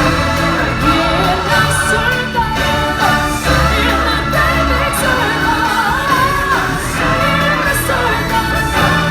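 Live stage-musical performance: singers and a choir over a band with a bass line.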